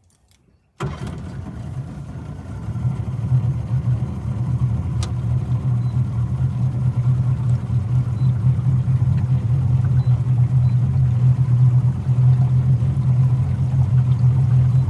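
Outboard motor on a small aluminium boat running steadily at low speed. It comes in abruptly about a second in and gets a little louder after two or three seconds.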